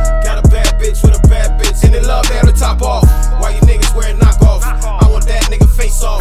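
Hip hop track playing: a deep, steady bass under a regular beat, with a loud drum hit a little under twice a second and a melody line over it.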